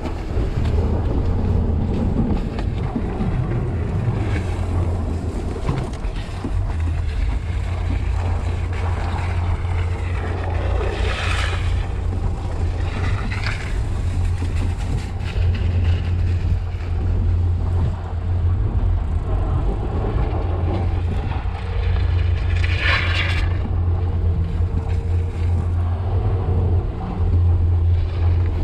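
Steady low rumble of wind buffeting the microphone during a tow ride behind a moving vehicle in a blizzard. A few brief hissing swells stand out, the strongest about eleven and twenty-three seconds in.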